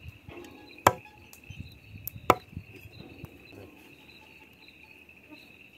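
Hatchet striking a wooden chopping board while butchering vizcachas: two loud chops about a second and a half apart, with a few lighter knocks between. Crickets chirr steadily throughout.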